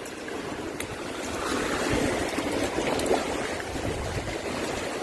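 Shallow seawater washing and trickling over rocks and sand at the shoreline, an even rush that grows a little louder about a second and a half in.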